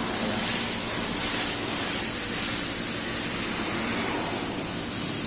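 Steady hiss with a faint low hum underneath, even throughout, with no distinct clicks or knocks.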